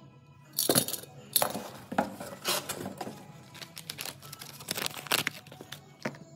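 Hand-handling of small pump parts: a run of sharp clicks and knocks mixed with rustling, as a plastic parts bag is crinkled in the hands.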